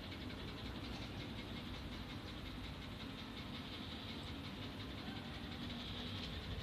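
Steady hum of running machinery with a fast, even rattle, and one faint short high chirp about four seconds in.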